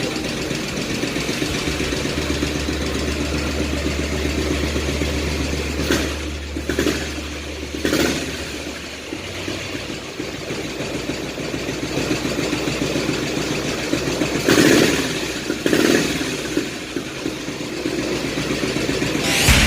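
1964 AJS Model 14 CSR's single-cylinder four-stroke engine running, with several short blips of the throttle where the revs rise and fall back.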